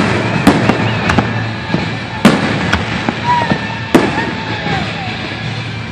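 Aerial fireworks shells bursting overhead: about six sharp, irregularly spaced bangs, each roughly half a second to a second apart.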